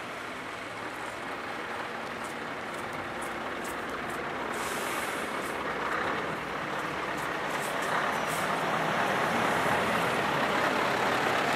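Steady road traffic with a lorry's diesel engine running, growing gradually louder toward the end as the lorry is approached.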